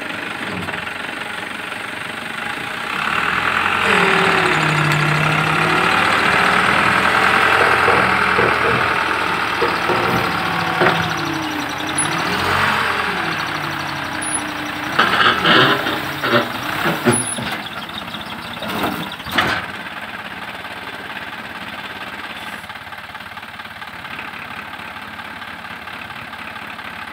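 Hook-lift garbage truck's engine revving, its pitch wavering up and down under load as the hydraulic arm hauls a loaded steel roll-off container up onto the truck bed. Heavy metal clanks and knocks come from about halfway through as the container slides and drops into place, the last bang the loudest, then the engine settles to a steady idle.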